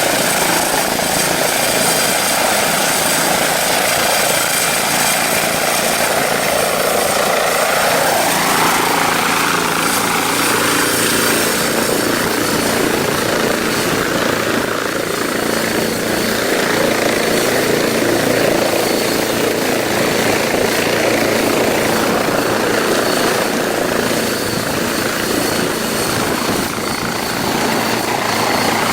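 Tandem-rotor Chinook helicopter running loud and steady: a dense rush of rotor and turbine noise, with its pitch shifting about eight seconds in.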